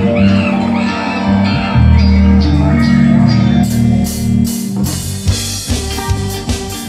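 Live rock band playing an instrumental intro: bass and guitar notes over keyboards, with the drum kit joining about three and a half seconds in.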